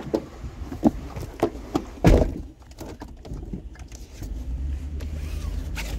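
Several short knocks and one heavy thunk about two seconds in, then a steady low vehicle rumble starting about four seconds in.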